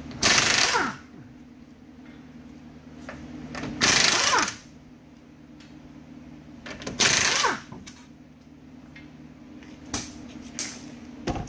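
Pneumatic impact wrench hammering the lug nuts off a car wheel in three short bursts, each under a second, the pitch falling as the tool winds down after each. A few sharp knocks follow near the end.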